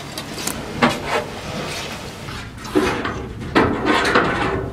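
Fresh wood chips being raked out of a tree-service chip truck's tipped box: a series of separate scrapes and rustling slides as the chips pour onto the pile.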